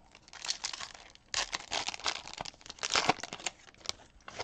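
Foil wrapper of a baseball card pack being torn open and crumpled by hand, in irregular bursts of crinkling, loudest in the middle.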